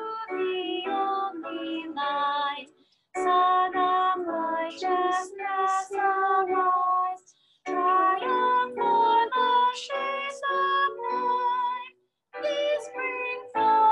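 A woman singing a hymn solo, phrase by phrase, with three short breaks for breath between phrases.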